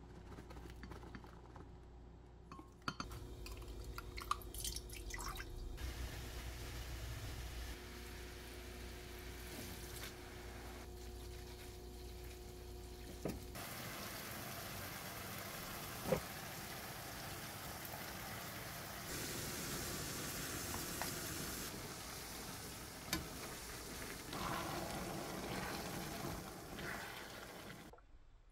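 Kitchen sounds in several short cuts. First a spoon stirs brown sugar into soy-sauce seasoning in a glass measuring cup, with drips and clinks. From about halfway, a steady hiss runs as glass noodles and vegetables fry in a frying pan and are stirred, with a few knocks of the wooden spatula.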